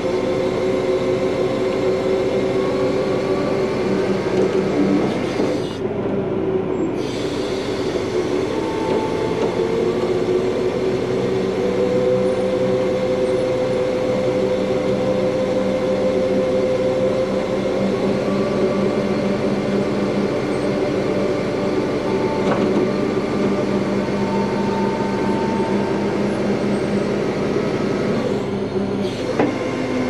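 Peterbilt V100 heavy wrecker's diesel engine running with its hydraulic winch pulling cable under load. It makes a steady drone with several whining tones that slowly slide in pitch.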